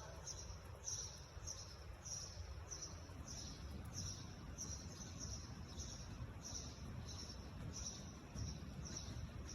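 A faint high chirp repeating evenly, about twice a second, over a low outdoor rumble.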